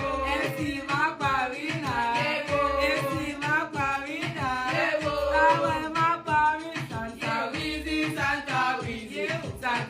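A song with a singing voice over short low bass notes that come about every two and a half seconds.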